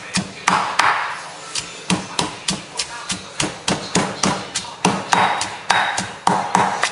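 Stone pestle pounding shallots, chillies and lemongrass with salt in a stone mortar, making a curry paste: a steady run of dull knocks, about three strikes a second.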